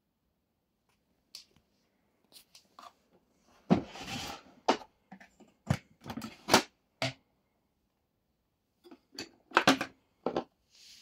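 Irregular plastic clicks, knocks and a brief scrape as the hard plastic body of a switched-off Philips Universe FC9004 bagged vacuum cleaner is handled, its top lid opened and the bag holder lifted out.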